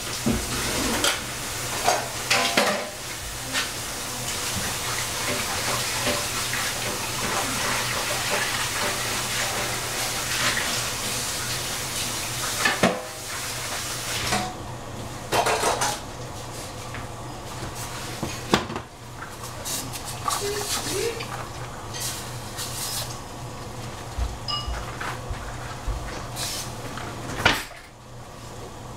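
Food frying in a pan, sizzling, while a utensil stirs it, clinking and knocking against the pan. The sizzle is strongest in the first half and eases about halfway through, leaving scattered clinks.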